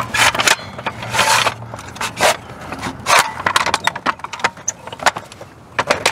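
Metal clicks, clanks and scrapes from a manual RV patio awning arm and its fittings as they are handled and adjusted: a rapid, irregular string of sharp knocks with short scraping rustles between them.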